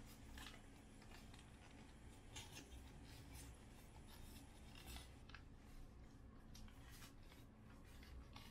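Faint rustling and crinkling of a paper food wrapper as it is peeled back from a snack, a scattering of soft crackles.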